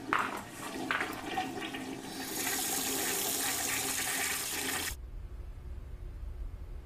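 Rushing, splashing water with a few knocks at the start. It cuts off abruptly about five seconds in, leaving a low hum.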